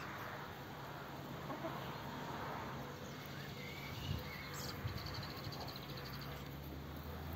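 Quiet outdoor ambience with a few faint, short bird chirps over a faint steady low hum. About five seconds in comes a brief, fast, high ticking.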